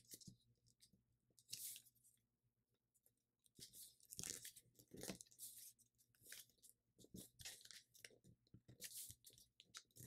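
Thin sheet of paper crinkling and rustling as it is creased and folded by hand, in faint, irregular bursts.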